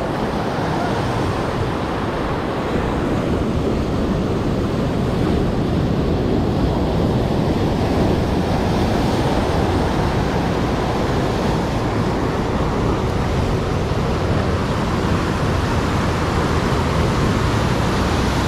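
Sea surf breaking and surging over shoreline rocks, a steady loud rushing, with wind buffeting the microphone.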